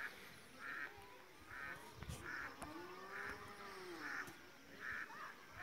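Faint calls of village birds and animals: short calls repeating roughly once a second, and one longer call about three seconds in that rises and then falls in pitch.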